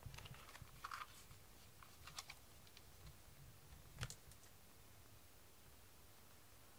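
Near silence: quiet room tone with a few faint scattered clicks, the sharpest about four seconds in.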